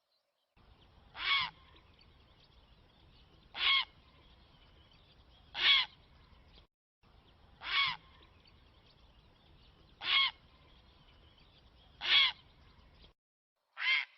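Recorded bird call played as a hunting lure: a short pitched call repeated seven times, about every two seconds. The recording is spliced, and its background hiss cuts out briefly between pieces.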